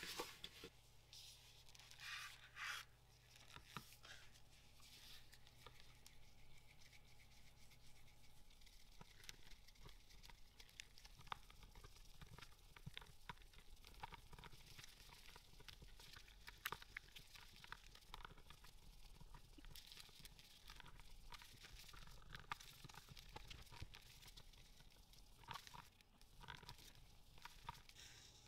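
Faint scraping and light ticking of a wooden craft stick stirring two-part epoxy resin in a plastic cup, the stick knocking against the cup wall as the two parts are mixed.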